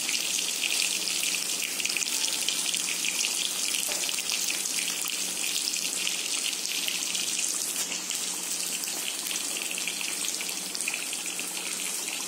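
Sambar dal boiling in an aluminium kadai on a gas stove: a steady crackling hiss of bubbling and sizzling, with a faint low hum underneath.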